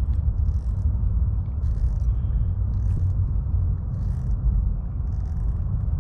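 Wind rumbling on the microphone, uneven and steady throughout, with faint short high scratchy sounds about once a second.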